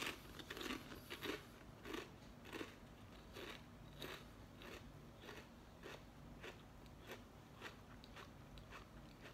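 A person chewing crunchy lentil chips with lips closed. A sharp crunch of the bite comes right at the start, then regular crunches about every half-second that grow fainter toward the end.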